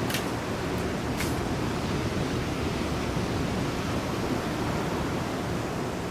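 A steady rushing noise, with two short high hisses in the first second and a half.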